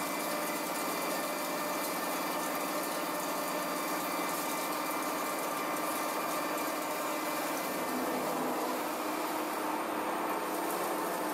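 Toshiba Machine BTD-110H.R16 horizontal boring machine running, its spindle turning with a steady machine hum and several fine, steady whining tones.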